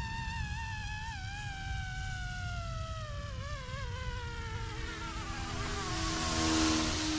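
YuXiang F09-S electric RC helicopter in flight: a motor and rotor whine falling slowly in pitch, then a louder rushing sound that swells and peaks about six and a half seconds in as it passes close by.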